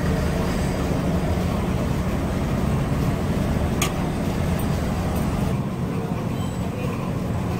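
Steady low rumble of background noise, with one sharp click about four seconds in.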